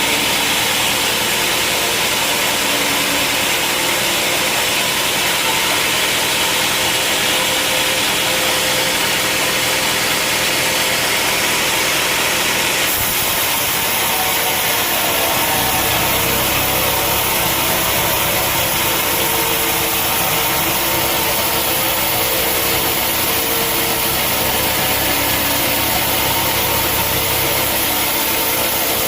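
Sawmill saw running steadily as it cuts through a large log, powered by an engine. The higher-pitched part of the sound changes about halfway through, and a deeper rumble joins a couple of seconds later.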